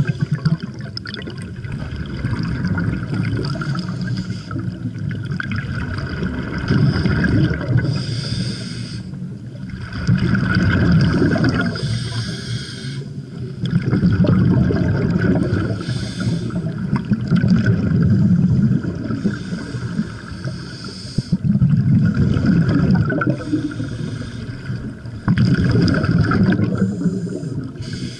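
Scuba regulator breathing heard underwater: a low bubbling rumble from exhaled bubbles alternating with a short hiss of inhaled air, about one breath every four seconds.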